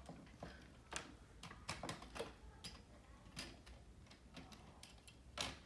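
Faint, irregular clicks and taps of LEGO plastic parts being handled as the Voltron model is taken apart, with one louder click near the end.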